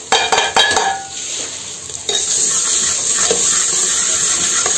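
Steel ladle clinking and scraping against an aluminium pressure cooker while stirring an onion, tomato, garlic and green chilli masala frying in oil. A few sharp clinks come in the first second, then a steady sizzle rises sharply about two seconds in.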